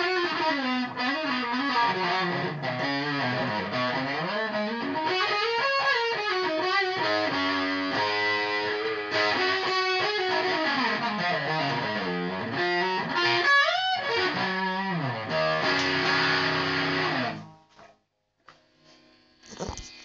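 Electric guitar playing a melodic lead line, with notes that glide up and down in pitch, sounded through an effects unit. The playing stops abruptly near the end.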